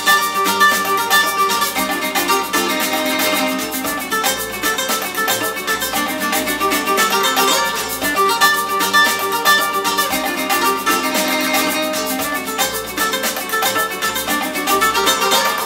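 Music with plucked strings to the fore, played through Aurelia Magneta II bookshelf loudspeakers and picked up in the room by a camera's built-in microphone, so it sounds thin with little deep bass.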